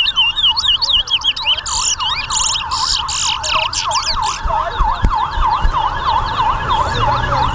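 Chestnut-bellied seed finches (towa-towa) singing loud whistled phrases, with one strong burst of song a couple of seconds in. Under them runs a wailing tone that rises and falls about four times a second, like a siren's yelp.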